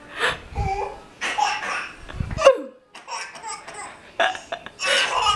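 Toddler girl laughing in repeated bursts of giggles, with short breaks between them.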